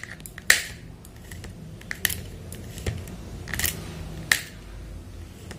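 Knife chopping almonds on a cutting board: a few sharp, irregular knocks of the blade, the loudest about half a second in.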